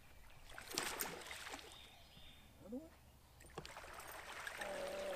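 Water splashing at the surface as a largemouth or spotted bass hooked on a spinnerbait thrashes near the boat, with one splash about a second in and the splashing growing louder from about three and a half seconds on.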